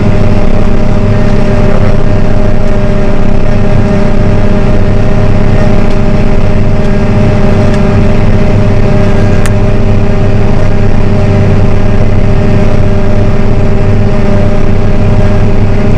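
Tractor and the trailed Elho Cobra 7710T forage harvester running steadily under load while chopping grass, heard from inside the tractor cab. A loud, even drone carries two steady whining tones.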